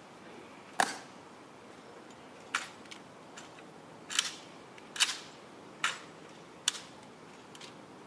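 Ceremonial rifle inspection of an M14 rifle: about seven sharp clicks and slaps of white-gloved hands and metal parts on the rifle, irregularly spaced and a few doubled.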